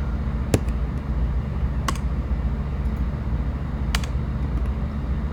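Three sharp clicks of computer keys, spaced about a second and a half to two seconds apart, over a steady low hum.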